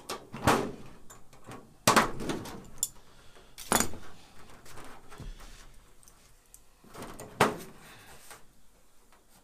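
An aluminium rivet fan spacing tool rattling and clanking as it is spread out and pressed onto a thin aluminium wing skin: four sharp metal clanks with ringing, and lighter rattles between them.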